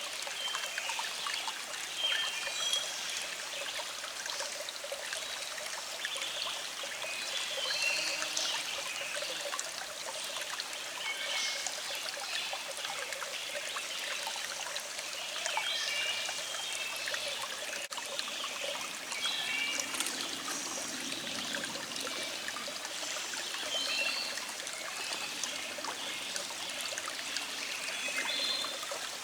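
A small stream trickling and babbling steadily over rocks, with birds singing in the background in short, scattered chirps.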